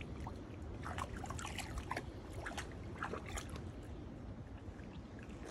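Schipperke dog wading and paddling in shallow water: a run of small splashes and sloshes, thickest between about one and three and a half seconds in, over a steady low rumble.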